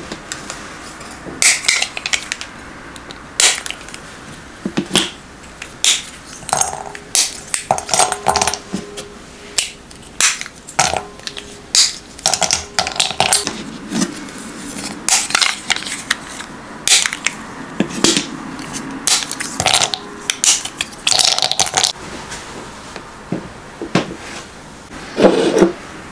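A bar of dark chocolate being snapped into small pieces by hand: a long run of sharp, irregular snaps, with small clinks as the pieces drop into a glass bowl. A heavier knock comes near the end.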